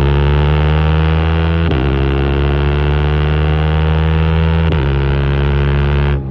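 KTM 390 Adventure single-cylinder engine through a custom de-catted exhaust, pulling hard and rising in pitch, with two upshifts about a second and a half in and again near five seconds. The loud engine note drops away sharply right at the end.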